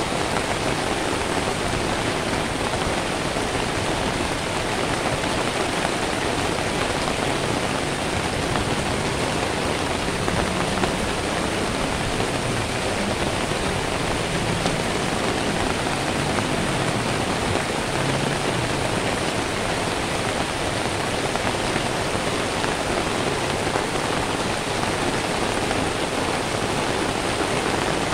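Steady rain falling, an even hiss with no breaks or thunder.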